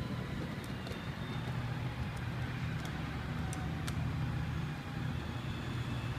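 Battery-powered ride-on toy jeep driving across asphalt. Its electric motors and hard plastic wheels make a steady low rumble, with a few faint clicks over it.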